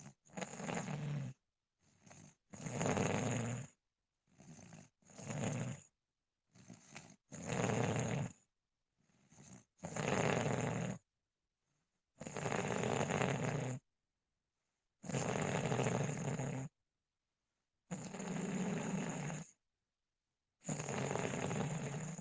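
Snoring: a run of separate snores with silent gaps between breaths, short and uneven at first, then from about halfway longer and regular, roughly one every three seconds.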